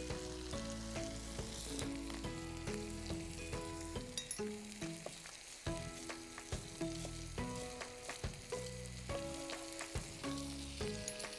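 Chicken and capsicum frying in ghee in a pan, a steady sizzle, under instrumental background music: a melody of held notes changing about twice a second over a low bass.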